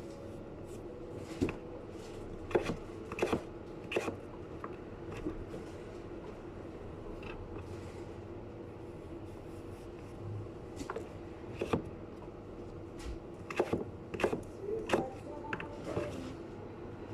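Scattered short knocks and scrapes of hand work in food preparation, in two clusters, over a steady hum.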